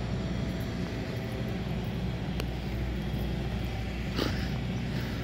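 Steady low mechanical hum, with a short scuff about four seconds in.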